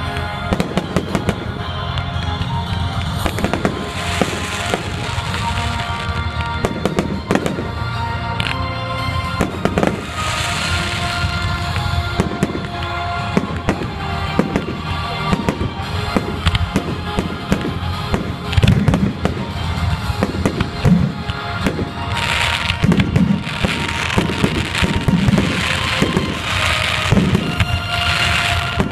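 Fireworks display finale: shells and mines banging and crackling in quick succession, the bangs coming thicker and louder in the second half.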